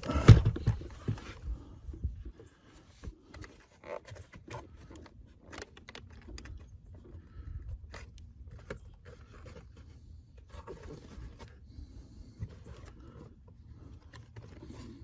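Hands working a car's interior door handle and trim loose: a loud knock just after the start, then scattered small plastic clicks and scraping.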